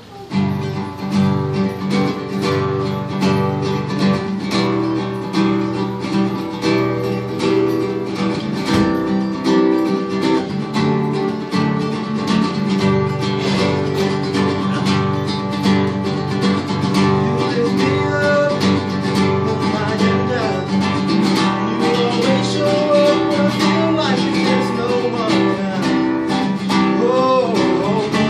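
Solo classical acoustic guitar strumming and picking chords in a steady rhythm, the introduction to a worship song. A man's voice begins singing over it in the last several seconds.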